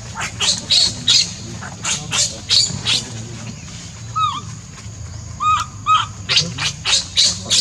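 Baby macaque giving short, shrill cries in quick runs, about two to three a second: one run at the start and another near the end, with a few brief arching coos in between.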